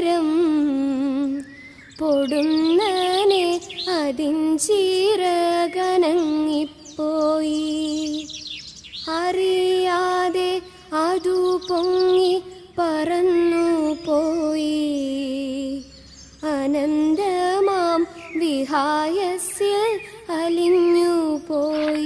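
A woman singing a slow Malayalam song in one solo voice, with long ornamented phrases, a wavering vibrato and short pauses between the phrases.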